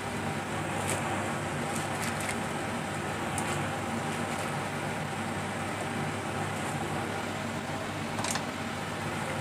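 Steady rushing sound of fish-paste and lettuce soup boiling in a pan over high heat, with a low hum underneath and a few faint clicks.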